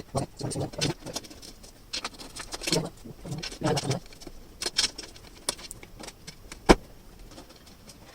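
Handling noises from fitting a tempered glass side panel onto a PC case: light knocks, scrapes and clicks, with one sharp click about two-thirds of the way through.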